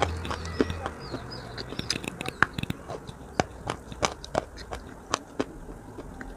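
Mouth sounds close to a clip-on microphone: scattered, irregular wet clicks and lip smacks from someone eating chalk with a paste coating, with a faint chirping behind.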